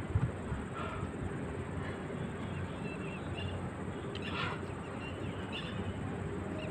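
Outdoor ambience: a steady low rush of wind, a few faint short bird chirps, and one soft thud just after the start.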